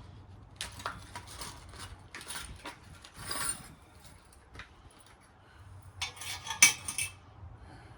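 Small metal parts and tools clinking and rattling in several short bursts of handling, the loudest clink about two-thirds of the way through.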